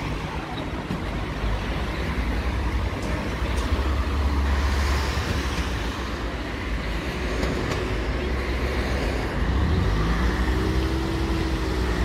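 Street traffic passing, a steady wash of car noise with a louder passing vehicle about four to six seconds in and another near the end.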